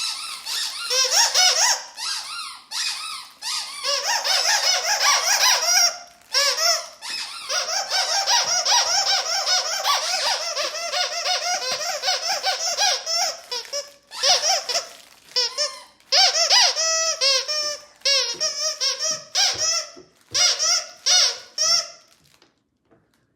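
A pet monkey giving long runs of rapid, high-pitched squeaks and chirps, broken by short pauses and stopping near the end.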